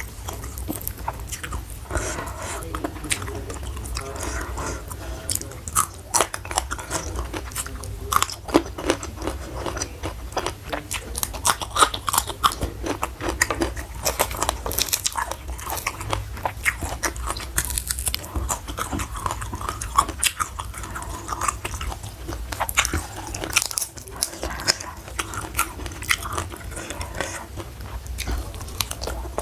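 Close-miked eating: loud, irregular crunching and chewing of crisp food, with many sharp crackles, over a steady low hum.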